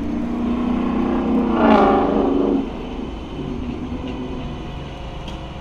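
A motor vehicle's engine running close by, swelling to a peak about two seconds in and then dropping away, like a car passing or pulling off.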